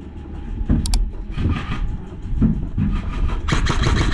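Uneven low rumble of movement and handling on a body-worn camera's microphone, with a sharp click about a second in. About three and a half seconds in, a dense rattle of airsoft gunfire starts.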